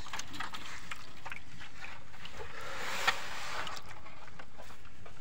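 Live fish flopping and splashing in shallow water in a metal basin, with scattered small splashes and knocks and one sharp slap about three seconds in.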